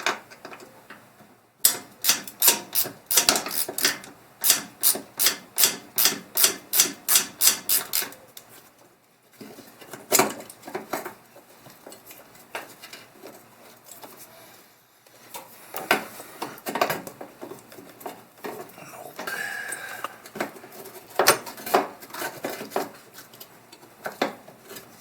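Ratchet wrench clicking in quick, even strokes for about six seconds while loosening the bolt that holds the gas pedal to the firewall, then scattered single metal clicks and knocks.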